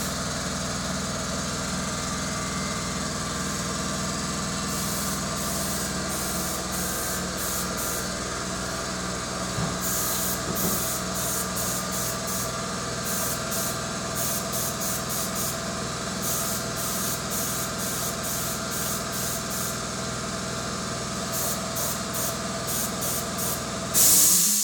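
Gravity-feed detail spray gun spraying paint, hissing in many short bursts with one longer, louder burst near the end. Under it runs a steady low machine hum.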